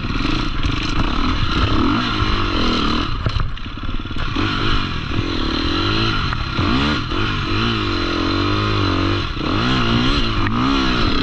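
Off-road dirt bike engine revving up and down in quick, repeated swells as the rider works the throttle through a muddy creek crossing.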